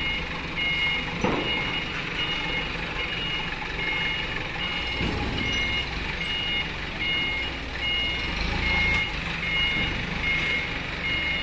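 Toyota forklift's reversing alarm beeping steadily, a little over once a second, over the forklift's engine running as it backs up under load.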